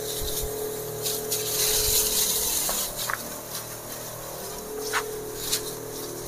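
Twin-motor battery knapsack sprayer running: a steady electric pump hum under the hiss of a water jet from the spray lance. The hiss is louder for about a second near the middle.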